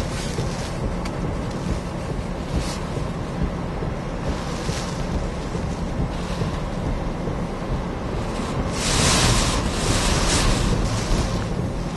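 Hurricane wind noise around a vehicle: a low steady rumble, with a louder rushing swell about nine seconds in.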